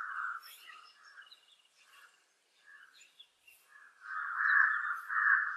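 Birds calling: harsh cawing calls at the very start and again through the last second and a half, with faint high chirps of other birds between and a near-silent stretch in the middle.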